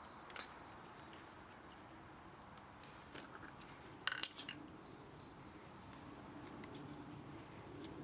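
Small clicks and metal-on-metal clinks of hand tools working on a scrapped electric motor, with a sharper cluster of clicks about four seconds in, over a faint steady hum.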